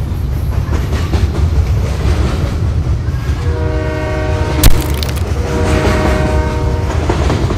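Train passing with a steady low rumble while its horn sounds two long chord blasts, the first starting about three and a half seconds in and the second about five and a half seconds in. A single sharp click comes between the two blasts.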